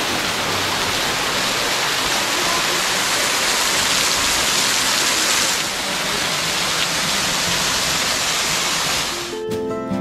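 Small waterfall splashing down a rock face: a steady rush of falling water. Near the end it cuts off abruptly and acoustic guitar music starts.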